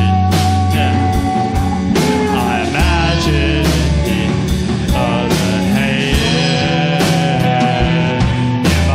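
A live rock band playing an instrumental passage between sung verses: a steady drum beat, a sustained bass and a lead melody line held and bent in pitch.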